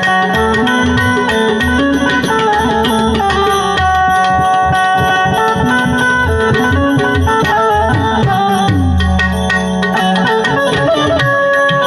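Instrumental passage in raga Bhairavi: a harmonium plays a held, reedy melody over a steady tabla rhythm. The bass drum strokes bend in pitch.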